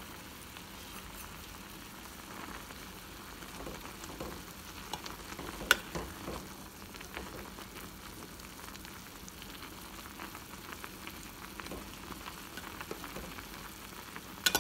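Instant noodles and vegetables boiling in a metal pot, a steady bubbling hiss, while a metal spoon stirs them. There is a sharp clink of the spoon on the pot about six seconds in and two more near the end.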